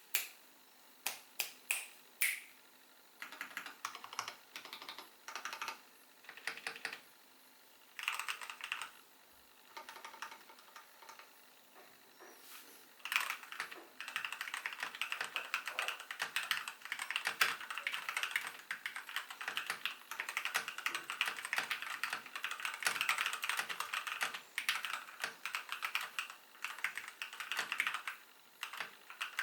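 Kono 84 mechanical keyboard with pre-lubed Gateron Milky Yellow linear switches, in a foam-filled case, being typed on. A few separate key presses at first, then short bursts of typing, and from about halfway on steady fast typing.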